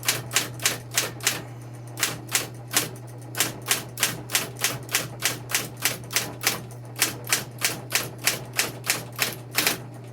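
SCM Smith Corona Coronet Electric 12 electric typewriter being typed on: a fast run of sharp key strikes, about three to four a second with a short pause about a second and a half in, over the steady hum of its running motor. The keys strike cleanly, none of them sticking.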